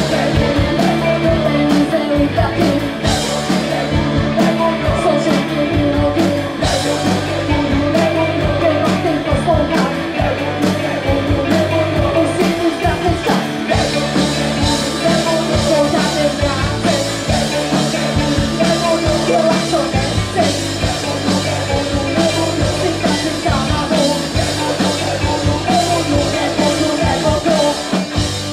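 Live rock band playing a song: electric guitars, electric bass and drum kit.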